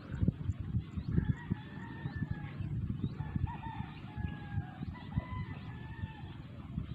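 Roosters crowing: several long, drawn-out crows, faint and overlapping, with a few small bird chirps. Louder is a gusty low rumble of wind buffeting the microphone.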